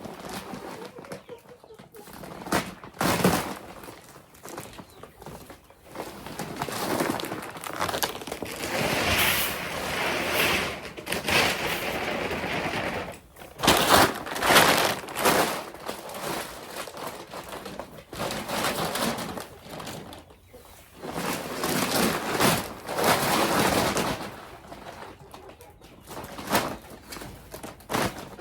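Feed being poured from bags into a 55-gallon drum: bursts of pellets rattling into the drum, several seconds at a time with quieter pauses between, while birds call.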